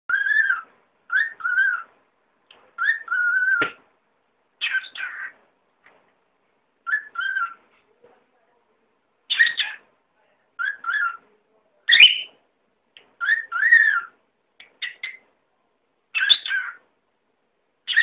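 Pet cockatiel whistling a run of short phrases, each under a second long, with brief pauses between them.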